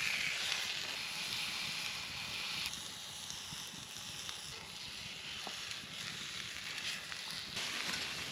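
Steady hiss of a campfire with food sizzling over it, with a couple of faint crackles. The hiss changes abruptly twice.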